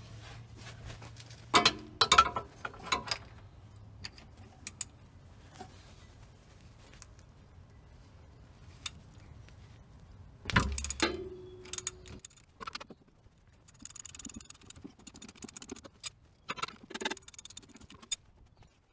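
Metal hand tools clinking and knocking while the 17 mm nuts on a car's rear differential carrier bushings are worked loose. A few sharp knocks come about two seconds in and again about halfway, then lighter rattling clinks near the end.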